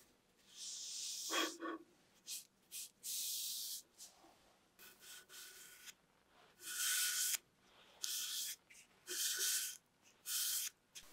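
A foam brush swishing over a wooden holder in a series of short strokes, each under a second, spreading a wet finish. One stroke about a second and a half in carries a brief squeak.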